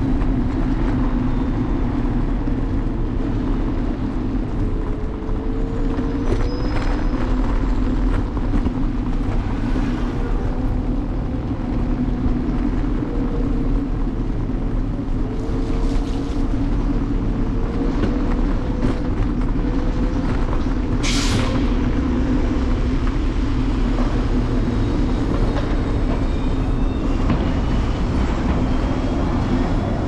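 Apollo Explore electric scooter riding on city streets, heard from its handlebars: a steady rumble of wheels on the road and wind on the microphone, with a wavering motor whine. A short sharp hiss comes about two-thirds of the way through.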